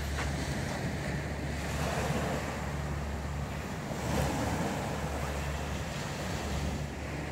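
Surf breaking on a sandy beach, a steady wash of waves, with wind rumbling on the microphone.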